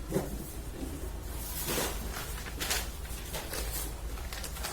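Rustling and crinkling of gift wrapping or packaging being handled and opened, in several irregular bursts, with a brief vocal sound just after the start.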